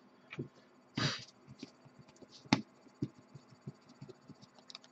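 Light handling clicks and taps on a hobby workbench as a small plastic paint bottle is picked up and moved, with one sharp click about two and a half seconds in. A short breathy puff of noise comes about a second in.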